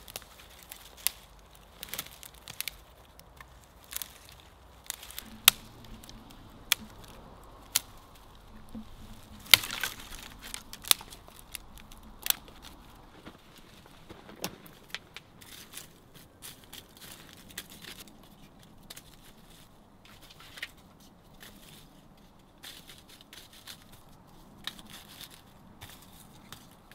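Dry dead twigs and branches snapping by hand in a run of sharp, irregular cracks, the loudest about five and nine seconds in. In the second half the cracks thin out to quieter clicks and rustles of dry sticks and tinder being handled.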